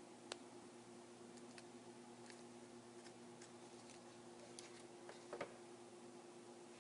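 Near silence over a faint steady hum, broken by a few faint clicks and taps from adhesive strips being handled and pressed down onto a phone frame, with a sharper click just after the start and a small cluster of taps about five seconds in.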